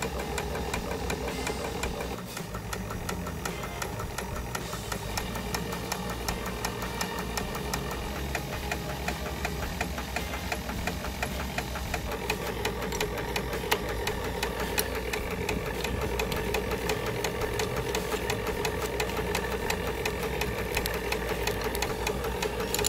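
Small steam engine running fast on steam from the boiler, beating rapidly and evenly, with a steady tone that grows stronger about halfway.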